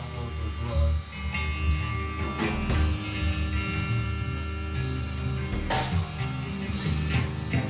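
Free-improvised noise rock from a drums, guitar and bass trio: irregular drum kit hits ring out over sustained low bass notes and held guitar tones.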